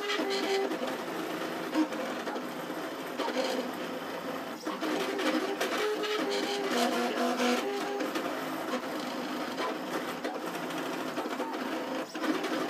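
Trinity Labs Aluminatus 3D printer running a print: its stepper motors, driving lead screws, whir in short steady tones that jump in pitch from one move of the print head to the next, with fine clicking.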